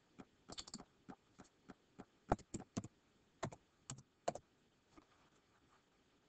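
Faint keystrokes on a computer keyboard as a short word is deleted and retyped: a dozen or so irregular clicks.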